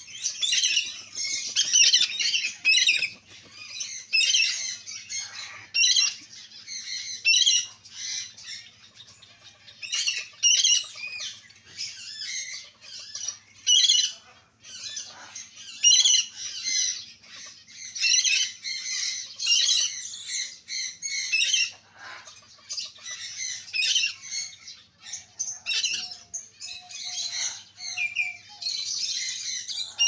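Mixed flock of birds chirping and squawking: quick, high, overlapping calls that come in bursts every second or two, with short lulls.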